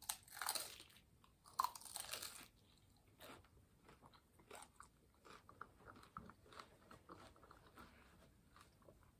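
A person eating close to the microphone: two bites in the first two and a half seconds, then quiet chewing with many small mouth clicks.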